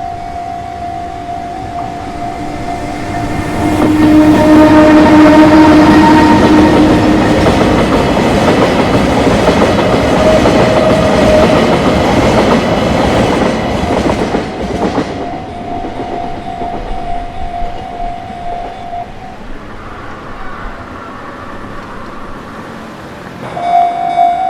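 Japanese level-crossing warning bell ringing steadily while a train passes. The train sounds its horn about four seconds in, and its wheels clatter over the rails for about ten seconds. The bell keeps ringing after the train has gone, then stops a few seconds before the end.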